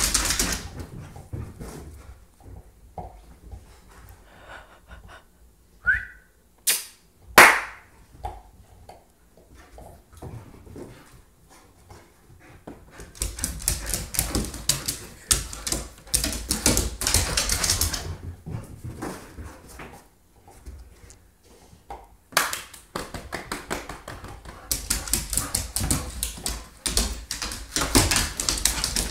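A pit bull's claws clattering fast on a hardwood floor as it runs after a frisbee, in two long stretches of rapid clicking, with a few sharp loud sounds about seven seconds in.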